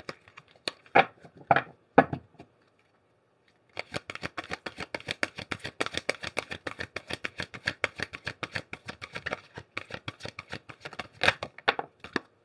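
A deck of large oracle cards being shuffled by hand: a few separate card slaps at first, then a long run of quick card clicks for about six seconds, ending with a couple of louder slaps.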